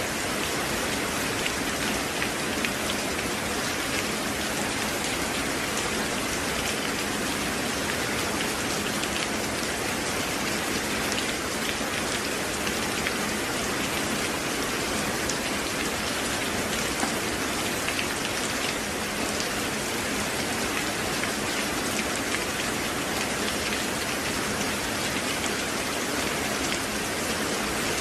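Steady, unbroken rain: an even hiss of falling water with many small individual drops ticking through it.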